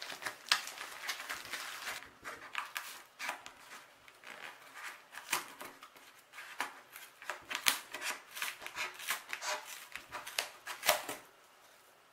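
Scissors snipping and scraping at packing tape and cardboard on a shipping box, mixed with the box being handled and turned: irregular sharp snips and rustles that die away near the end.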